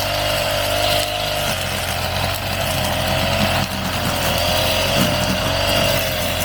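Grass-cutting brush cutter engine running steadily, its pitch wavering slightly up and down as it cuts through grass and weeds.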